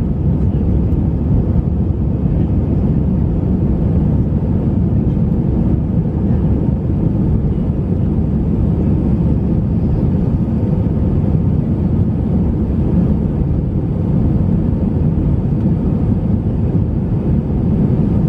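Steady low rumble of a jet airliner's engines and rushing air heard inside the cabin during the climb after takeoff.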